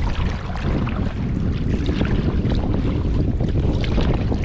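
Wind buffeting the microphone in a steady low rumble, with choppy lake water splashing and lapping against a canoe as it is paddled.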